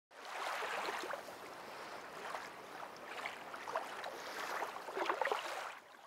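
Water sounds: a steady rush of moving water with small splashes and gurgles scattered through it.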